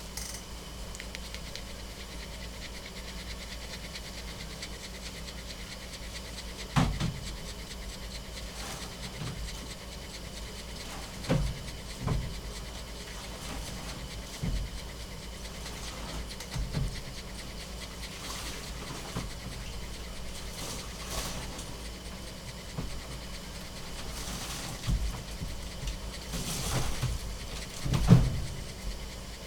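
A dog panting over a steady hum, with a few short knocks and bumps scattered through, the loudest near the end.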